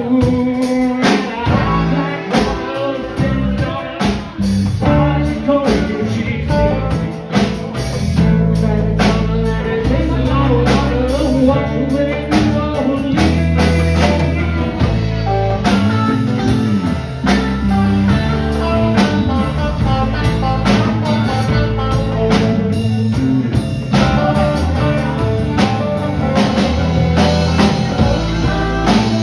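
Live bar band playing blues-rock in a loose, improvised style: electric guitars over a steady drum-kit beat.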